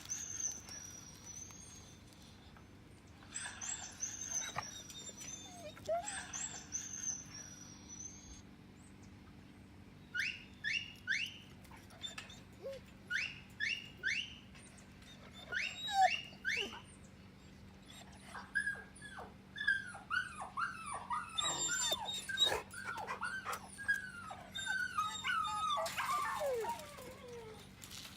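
A dog whining and whimpering in many short, high-pitched cries that glide up or down, along with high whistling sound effects played to it; the falling whines come thickest in the last ten seconds.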